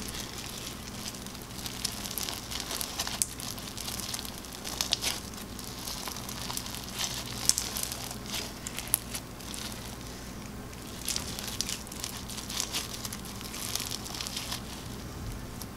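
Fishbowl slime, clear slime packed with plastic fishbowl beads, squeezed and kneaded by hand: dense crunching and crackling pops in repeated bursts with each squeeze. A faint low hum runs underneath.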